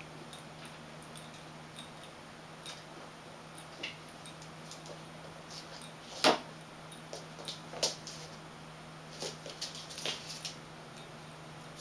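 Cats moving and playing on a hard floor: scattered soft taps and knocks over a steady low hum, with one sharper knock about six seconds in and a cluster of taps around ten seconds.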